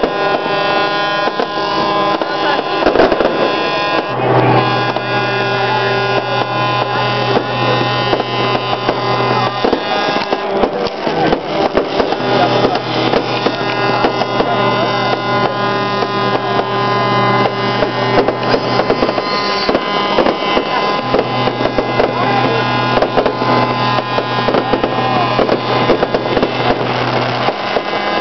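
Background music with held notes and a bass line that drops in and out in long stretches.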